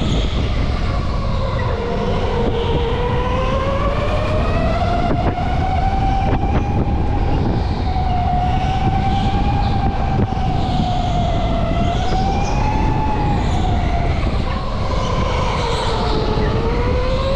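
Go-kart motor running with a steady whine that rises and falls in pitch as the kart speeds up and slows, over a constant low rumble.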